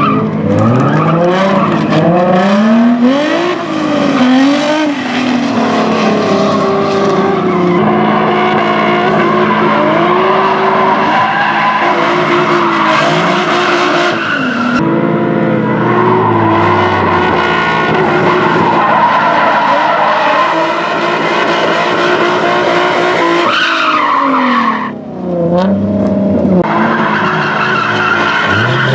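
Nissan 350Z drift car sliding on track: the engine revs up and down repeatedly as the driver works the throttle through the drift, over a constant squeal and hiss of spinning rear tyres. The sound drops briefly about 25 seconds in, then picks up again.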